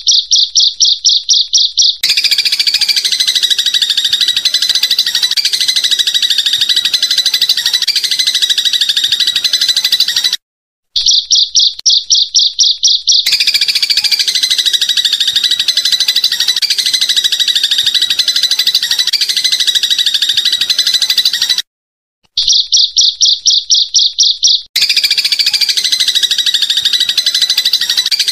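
Looped songbird-tutoring recording mixing insect and house sparrow sounds. A short, evenly pulsed high trill of about six pulses a second is followed by dense, rapid high-pitched chirping. The sequence repeats about every eleven seconds, with a brief silent gap between repeats.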